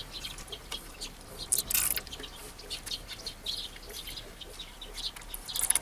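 Plastic cable tie being pulled tight around a grapevine stem and wooden lath: a short zipping rasp about one and a half seconds in and another near the end, with light handling clicks and rustles of leaves in between.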